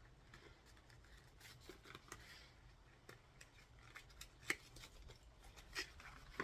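Faint rustling and small clicks of a setting-spray box and its packaging being opened and handled by hand, with a few sharper ticks near the end.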